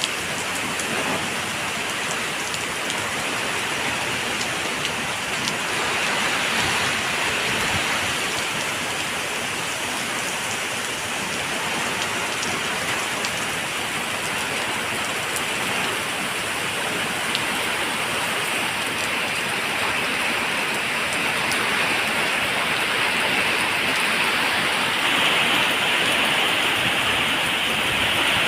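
Steady, even rush of falling water, continuous without a break.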